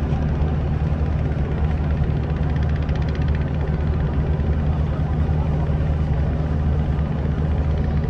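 Passenger ship's engines running with a steady, deep hum that neither rises nor falls as the ship berths alongside the quay.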